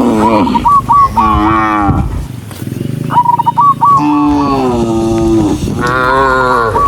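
Several cattle mooing in overlapping calls, some long and drawn out, with short high calls between them.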